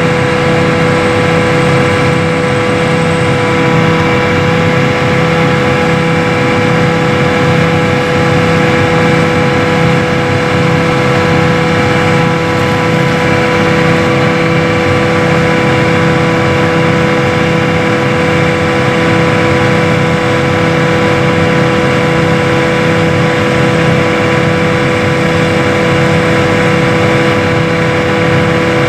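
John Deere 8500 self-propelled forage harvester running steadily while chopping corn for silage: a constant loud machine drone with a steady whine held at one pitch.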